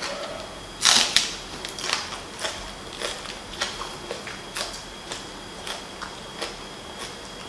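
A crisp snap as a raw green onion stalk is bitten off about a second in, then steady crunchy chewing of the raw onion, about two crunches a second, close to the microphone.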